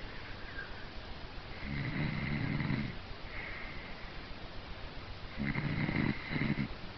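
Heavy snoring: one long snore about a second and a half in, and another near the end that breaks into two parts, with a faint whistling breath between them.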